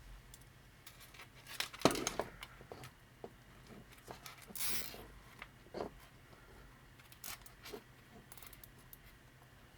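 Small clicks and rustles of 3D-printed plastic robot leg parts being handled, with a sharp click about two seconds in and a short rasp a little before the midpoint, as a zip tie is pulled tight around the leg.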